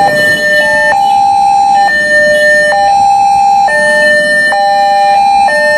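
Electronic railroad crossing warning alarm sounding loudly, a steady pattern of tones that switches between two pitches about once a second, with a higher tone cutting in and out in step. It is a 'broken sound' version of the crossing signal.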